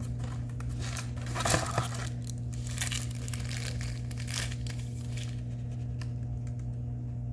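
Packaging being torn open and crinkled by hand, in scattered rustles with the loudest burst about a second and a half in, over a steady low hum.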